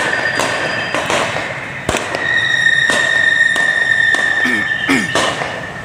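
A run of sharp bangs, roughly one or two a second, the loudest about two seconds in, against a steady high tone that holds through most of it.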